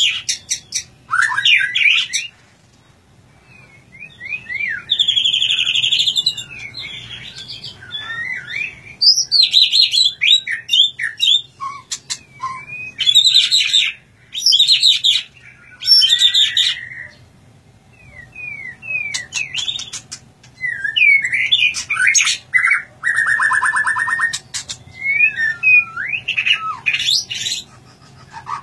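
Caged white-rumped shama (murai batu) singing a loud, varied song of rising and falling whistles, buzzy trills and rapid chattering phrases, broken by short pauses.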